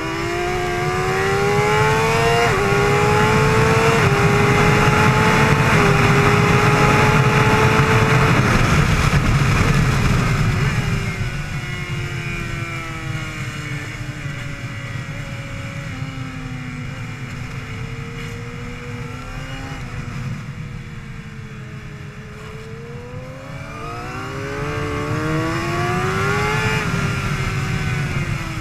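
Suzuki GSX-R750's inline-four engine at track speed, heard from the rider's helmet over heavy wind rush. It accelerates hard through the gears with an upshift early on and stays loud and high-revving for several seconds. Around ten seconds in it comes off the throttle and runs at lower revs through a series of corners, then accelerates again near the end before easing off.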